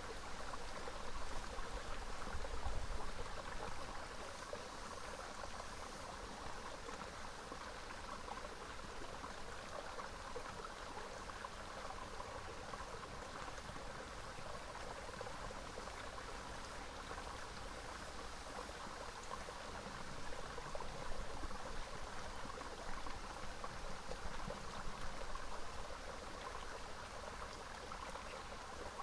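Small rocky river flowing steadily, an even rush of water, with a few low rumbles a couple of seconds in and again past twenty seconds.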